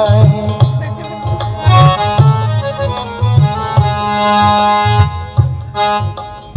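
Live Punjabi folk band playing an instrumental break between sung lines: keyboard holding steady melody notes over a regular hand-drum beat with bass.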